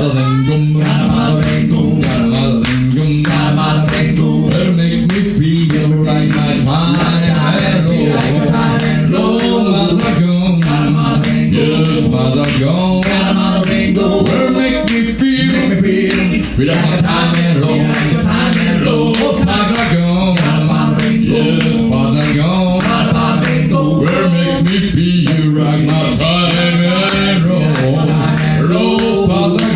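Four-man male a cappella group singing in close harmony, low voices holding sustained chords under a moving lead line, over sharp percussive clicks keeping a steady beat.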